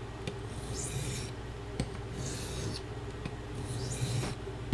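Knife blade stroked along a medium India sharpening stone, three even strokes each giving a brief scraping hiss, to bring up a polish on one side of the bevel.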